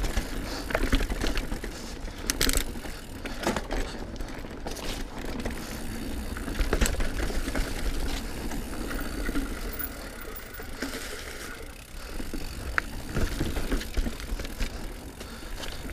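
Diamondback Release 3 mountain bike rolling downhill on a dirt trail: tyre noise and wind rumble on the action camera's microphone, with the chain and frame rattling over bumps and sharp knocks now and then.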